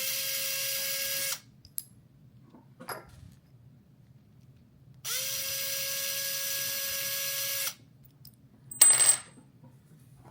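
Small electric screwdriver motor spinning in two runs, backing out the two packaging screws that hold a beadlock wheel together, with light clicks in between. A short metallic clatter near the end.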